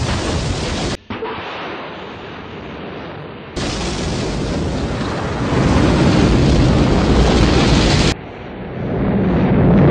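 Rocket engines at liftoff: a deep, steady roar of exhaust noise, broken by several abrupt cuts and growing louder toward the end.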